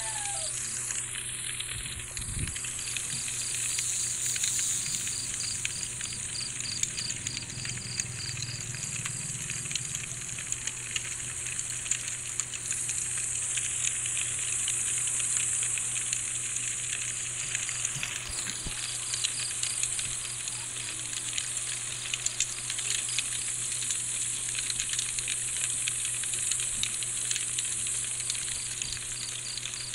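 Crickets chirping in an even, steady pulse over a constant high hiss of night insects, with frequent small crackles and pops of a campfire burning.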